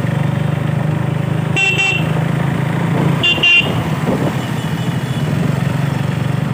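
KTM Duke single-cylinder engine running steadily while riding slowly. A horn sounds briefly about a second and a half in, then twice in quick succession a little after three seconds.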